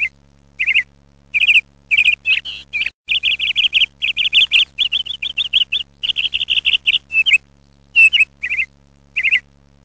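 A small songbird chirping in quick runs of short, high, downward-sweeping notes, broken by brief pauses, over a faint steady low hum.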